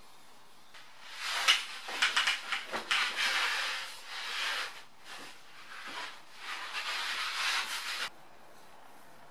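Hand work against a long aluminium guide-rail profile: a few sharp knocks about a second in, then long scraping, rubbing strokes along the metal, stopping suddenly about eight seconds in.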